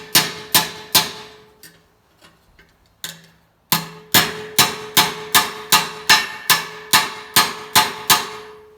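Hammer blows on steel sheet metal, knocking down a tuck so the metal is trapped and shrunk into a tighter curve. Three blows, a few light taps, then a steady run of about a dozen blows at roughly two and a half a second, with the metal ringing between strikes.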